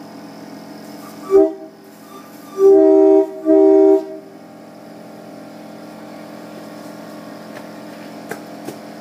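A multi-tone horn sounding its notes together as a chord: one short blast, then two longer blasts in quick succession, over a steady low hum.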